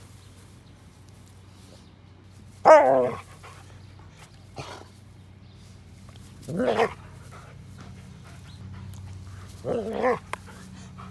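Dogs play-fighting: one dog gives three short, loud, wavering barks, spaced about three seconds apart, with light scuffling between.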